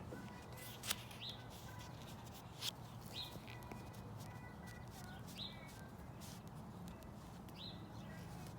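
A bird calling a short, high note over and over, about every two seconds, over a steady low background hum. Two sharp clicks stand out, about a second in and again near three seconds.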